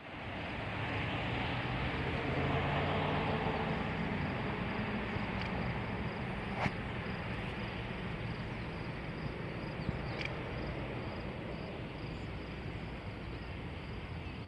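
A vehicle driving: steady engine and road noise, the engine pitch rising gently in the first few seconds. A faint high steady trill runs underneath.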